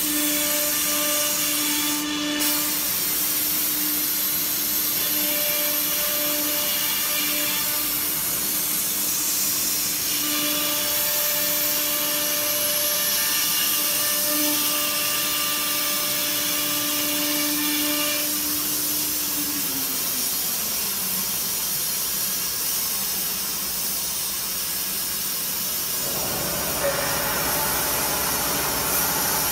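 Acctek AKM1325C automatic-tool-change CNC router cutting a wood panel: a steady, high spindle whine over a loud hiss of cutting. About twenty seconds in the whine falls in pitch, and near the end the sound turns rougher and lower.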